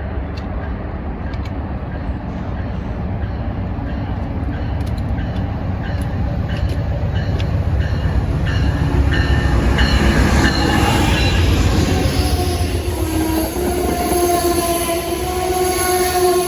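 Passenger train pulling into a station: a heavy rumble that grows louder, with a steady metal squeal from the wheels coming in over the last few seconds.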